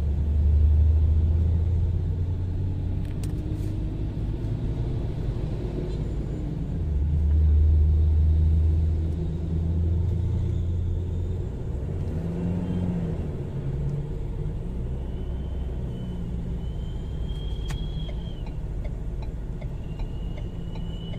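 In-cabin low rumble of a Ford Ranger's 2.2-litre diesel engine and drivetrain while driving slowly in traffic, swelling and easing a few times with the throttle. The engine is running after its cracked turbo intake hose was replaced, with no check-engine light.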